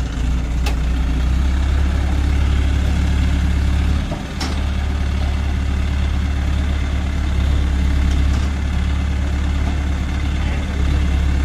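Diesel engine of an ACE mobile crane running steadily with a deep low hum, with two sharp metallic clicks, one near the start and one about four seconds in.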